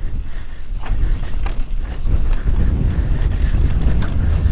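Wind rumbling on the camera microphone and tyres rolling over a dirt trail as a Pivot Mach 6 mountain bike rides at speed, with scattered light clicks and rattles from the bike. The rumble grows louder about two seconds in.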